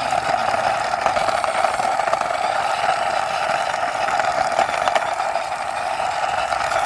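Plastic toy motorbike being pushed by hand along rough stone, its wheels giving a steady grinding whir with small rattling clicks.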